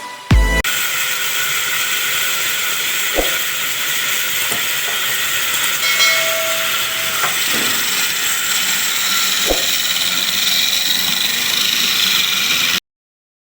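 Wood lathe turning, with a tool cutting into the spinning wood: a steady hiss with a few short knocks. It cuts off suddenly near the end.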